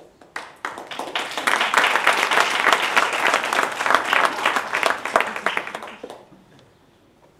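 Audience applauding: a few scattered claps grow into full applause about a second in, which fades away about six seconds in.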